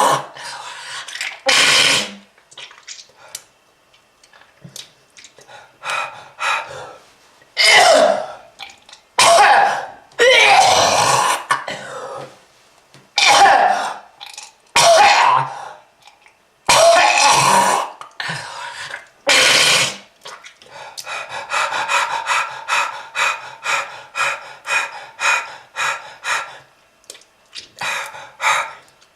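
A person coughing hard in repeated hacking fits with throat-clearing, about nine loud separate bouts, then a fast run of short coughs about three a second, the kind of heavy cough of a smoker with lung disease.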